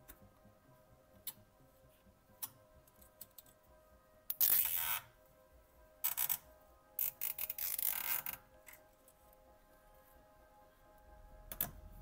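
Plastic cable ties being pulled tight through their ratchet heads: three quick zipping runs of rapid clicks, the last the longest, over soft background music.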